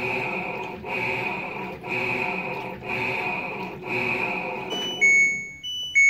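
LG top-load washing machine running with a pulsing sound about once a second. About five seconds in, that sound stops and the control board starts its error alarm: short high beeps about once a second. This is the dE (door/lid) error, set off because the magnet is no longer closing the circuit with the lid sensor.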